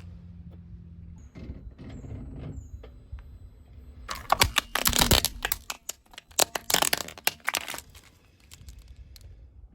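A car tyre rolling over and crushing crunchy objects: a low rumble, then a dense run of sharp cracks and crackles from about four to eight seconds in.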